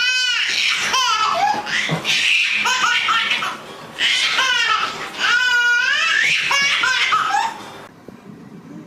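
A baby laughing hysterically in several high-pitched, squealing fits that stop about a second before the end.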